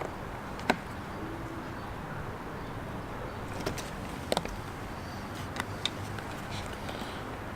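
A few sharp, separate clicks and taps of a hand tool on metal as the USB outlet's mounting nut is turned tight. The sharpest click comes about a second in, and the rest fall scattered over a steady low background hum.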